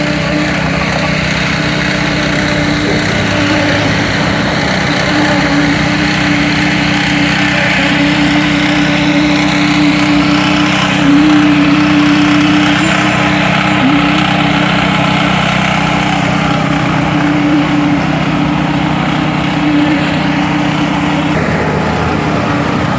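Small petrol engine running steadily at high speed with a strong, slightly wavering hum, typical of the site equipment at a concrete pour; the high hum drops away near the end.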